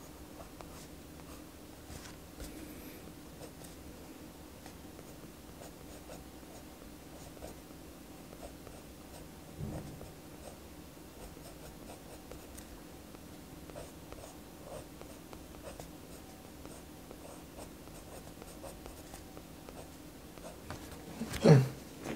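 Pen scratching on paper in short drawing and shading strokes, over a faint steady hum. Near the end comes one short, loud throat-clearing sound.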